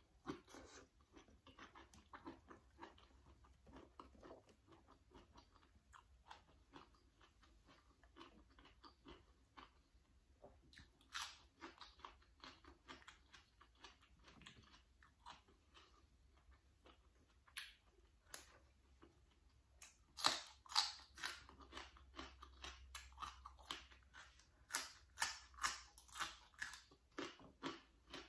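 A person chewing and biting food up close, with sharp crunches of crisp raw vegetables. The crunches become louder and more frequent about two-thirds of the way through.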